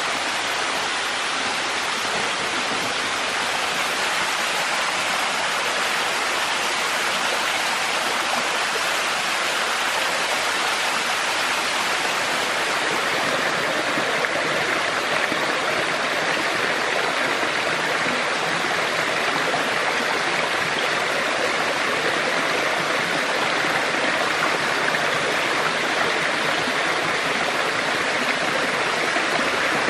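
Small waterfall cascading down a rock face in a forest stream: a steady rush of falling water.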